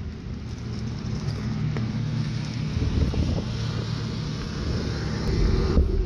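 Steady engine and road noise heard inside a moving SUV's cabin, a low hum that grows heavier about five seconds in.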